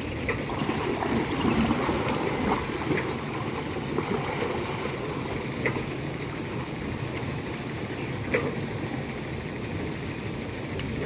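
Water sloshing and splashing around young water buffalo standing and lying in a shallow pond, with a few sharper splashes scattered through.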